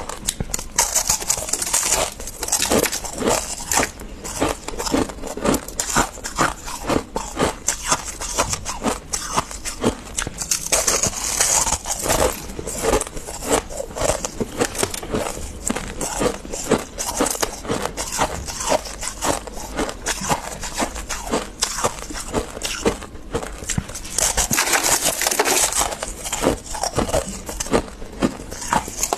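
Freezer frost being scraped loose and crunched: dense, irregular crunching clicks, with stretches of rasping scraping noise about a third of the way in and again near the end.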